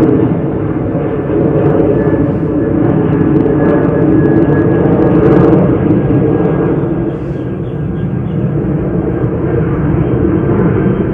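Jet airliner climbing out after takeoff, its engines a loud, steady rumble.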